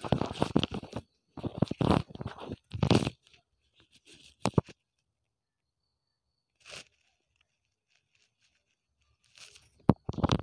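Rustling, crunching noise in three bursts over the first three seconds, then a few short faint clicks and scrapes.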